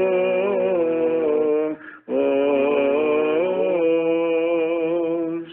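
Male voices singing Byzantine chant: a slow, drawn-out melody over a steady low held drone (the ison), with a short breath pause about two seconds in.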